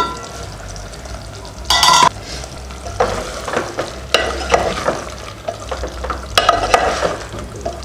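A brief ringing metallic clank about two seconds in, then a wooden spatula stirring and scraping chicken pieces through thick Chettinad masala in a pot in irregular strokes, with a light sizzle. The chicken is frying in its own juices, with no water added yet.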